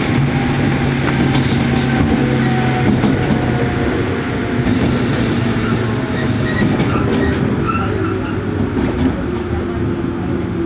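JR Kyushu 103 series 1500 electric train running at speed, heard from inside the motor car: its MT55 traction motors growl with steady low tones over the rumble of wheels on rail. A burst of hiss for about two seconds near the middle.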